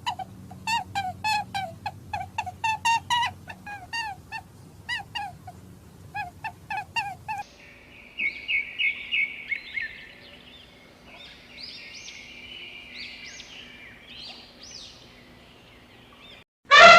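Short pitched animal calls repeated about three to four times a second in runs, then a bird's higher, quieter chirps and trills.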